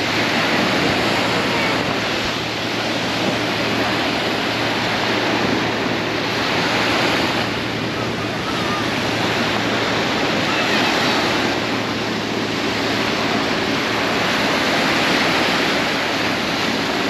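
Waves and rushing water with wind buffeting the microphone, the noise swelling and easing every couple of seconds over a faint steady low hum.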